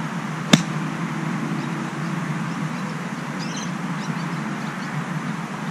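A single sharp click of a golf club striking the ball on a pitch shot, about half a second in.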